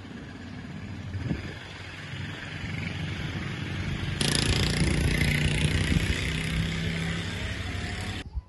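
A motor vehicle's engine running amid outdoor noise. The sound gets louder and brighter about four seconds in, then cuts off abruptly just before the end.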